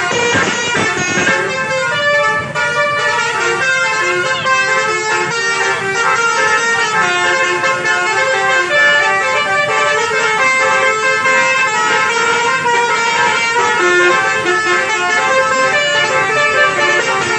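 Indonesian bus telolet horns, multi-tone musical air horns, playing quick melodic runs of short notes almost without pause.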